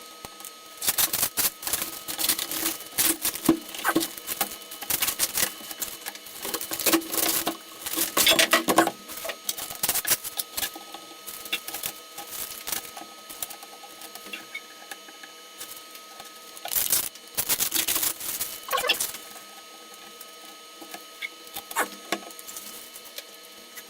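A wooden shipping crate being opened: irregular clusters of knocks, clicks, scrapes and rattles as the lid and its fastenings are worked loose and handled, with quieter stretches between.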